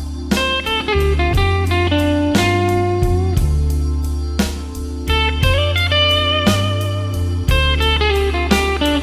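Blues band playing an instrumental break: a lead guitar solo with bending, sliding notes over a bass line and a steady beat.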